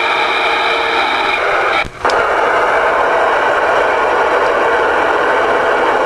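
Loud, steady static hiss from a ten-meter/CB radio receiver's speaker, with a few faint steady tones in it at first. It cuts out briefly about two seconds in, then carries on.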